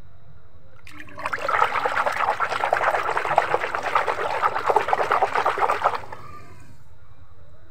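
A hand swishing and splashing in a tub of soapy water, churning it into foam. The splashing starts about a second in and stops about six seconds in.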